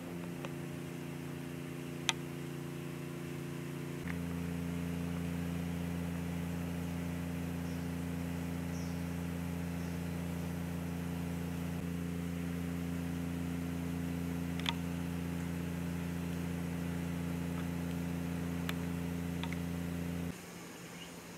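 A machine running with a steady low hum. About four seconds in it changes to a deeper, louder hum, then cuts off suddenly near the end. A couple of faint clicks sound over it.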